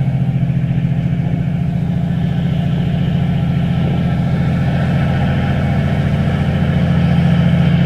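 The ferry's engines running steadily under way, a deep, even drone that grows a little louder near the end.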